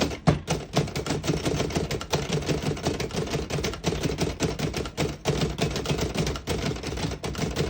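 1938 Remington Deluxe Noiseless portable typewriter being typed on quickly, a rapid run of muted key strikes. The noiseless action gives a dulled clack.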